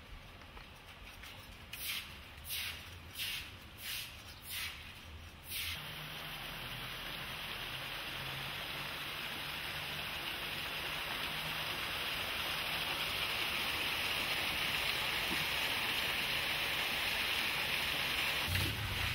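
About six short scraping strokes of a broom sweeping wet concrete, then a steady rush of water spraying and splashing onto the tunnel's wall and floor, slowly growing louder.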